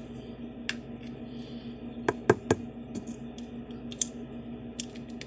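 Light plastic clicks and taps from small glitter containers being handled and opened, with three quick clicks about two seconds in and a few scattered lighter ones, over a steady low hum.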